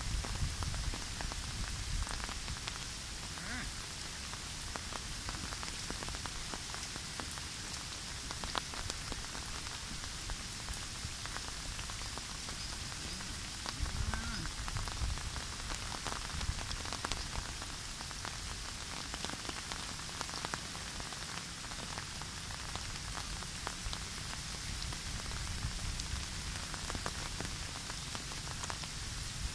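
Steady heavy rain, with a dense patter of drops landing close by and gusts of wind buffeting the microphone.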